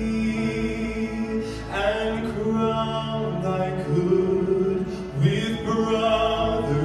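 Slow music with long held notes and a singing voice.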